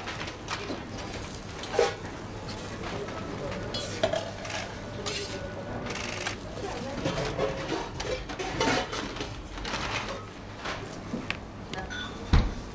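Kitchen clatter: metal spatulas, tongs and knives clink and scrape against crêpe griddles and steel food containers in scattered knocks, over a steady low hum.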